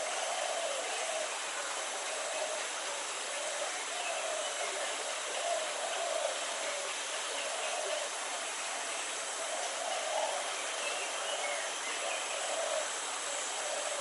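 Steady hiss of outdoor background noise, with a faint low sound recurring about once a second.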